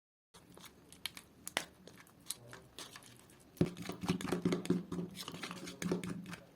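Close handling sounds: soft crinkling and tearing with scattered light clicks, busier in the second half.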